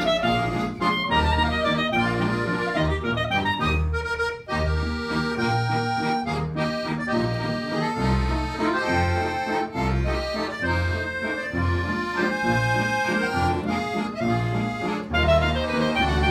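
Live folk band playing: clarinet and accordion carry the tune over a plucked double bass keeping a steady beat.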